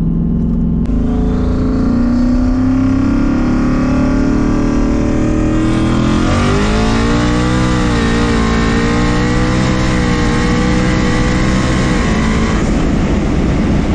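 Twin-turbo Mustang engine pulling hard under boost, heard from inside the cabin, on a first low-boost pass. The engine note climbs slowly, sweeps up sharply about six seconds in, holds high with a growing hiss, and eases off near the end.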